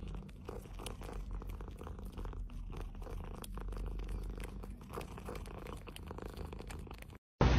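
Domestic cat purring steadily, a low continuous rumble that cuts off abruptly just before the end.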